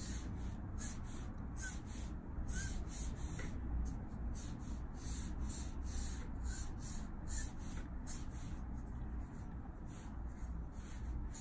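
Copic alcohol marker nib dragged over Bristol paper in short, repeated light strokes, about three a second, over a low steady hum.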